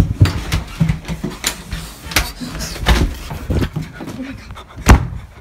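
Phone microphone handled at very close range: rubbing and scraping against clothing, with repeated knocks, the loudest near the end. Muffled voice sounds close to the microphone run underneath.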